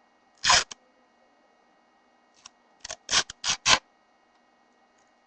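Sellotape being pulled off the roll in short rasping rips: one about half a second in, then a quick run of four or five around three to four seconds in.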